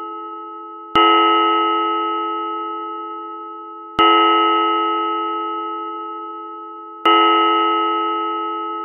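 Church bell tolling: three strokes about three seconds apart, each ringing with several overtones and fading away until the next stroke, with the fading ring of an earlier stroke at the start.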